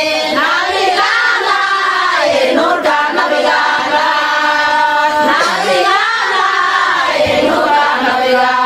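A group of voices singing together, with notes that glide up and down and some held for a second or more.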